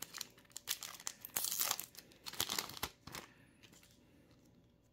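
Foil booster pack wrapper being torn open and crinkled by hand, in several short rustling bursts that die away about three seconds in.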